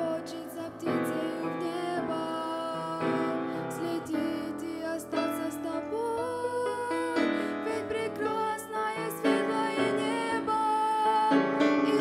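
Grand piano playing a song's opening, chords with a melody line above them, the harmony changing about once a second.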